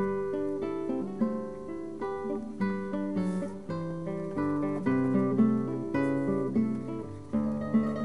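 Background music: a solo acoustic guitar playing a melody in plucked notes, each ringing and fading.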